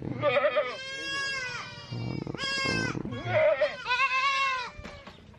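Goats bleating: several long, wavering bleats in quick succession, two of them overlapping a little after three seconds in.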